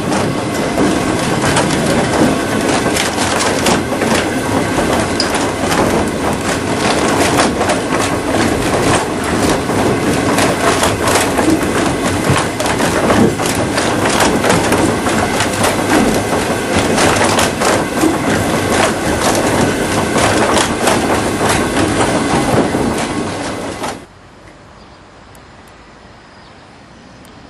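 Loud, steady rattling and rumbling noise, thick with sharp clicks, which cuts off suddenly about 24 seconds in and leaves a quiet steady background.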